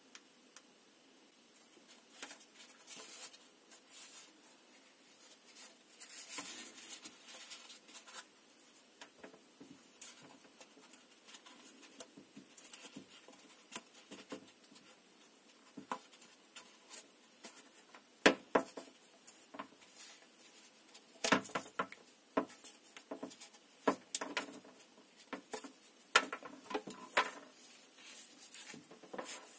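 Close handling of earphone packaging: light rustling and scraping of clear plastic ear-tip trays and a cardboard box insert. In the second half come sharp clicks and taps as the earphones are worked out of the insert and set down on the table.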